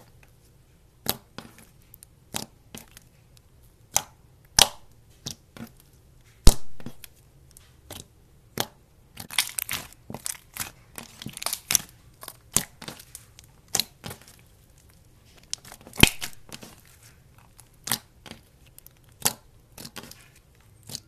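Glossy slime being pressed and poked with fingers, giving sharp pops and clicks at irregular intervals as air pockets burst, with stretches of softer crackling about halfway through.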